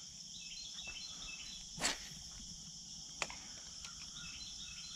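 A steady, high-pitched chorus of insects, with short chirping notes over it. About two seconds in there is a short swish of noise, and a sharp click a little over a second later.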